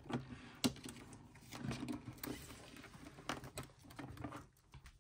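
Handling of a photocard binder: a scattering of soft clicks and taps, with a brief rustle about a second and a half in, as binder pages and covers are moved.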